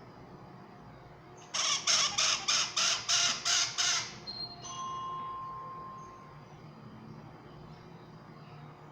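Small pet parrot giving a rapid series of about nine loud, harsh squawks over two and a half seconds, starting about a second and a half in, followed by a fainter held whistle.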